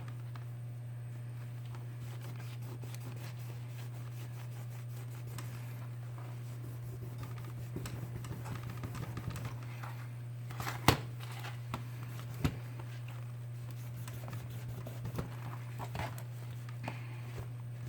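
Scratching and rubbing at old adhesive residue on a smartphone frame, with a few sharp clicks of a tool against the phone, loudest about eleven and twelve and a half seconds in. A steady low hum runs underneath.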